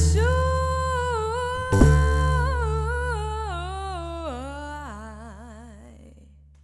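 A woman's wordless, hummed vocal line, sung slowly downward with vibrato, over the low plucked bass notes of a long-necked Gnawa lute, with one fresh bass pluck just under two seconds in. The voice and bass fade out together, closing the song.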